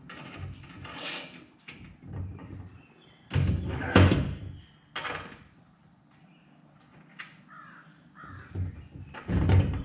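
Knocks and clatter of a cart wheel, washers and axle parts being handled, in several separate bursts, the loudest about four seconds in and another near the end.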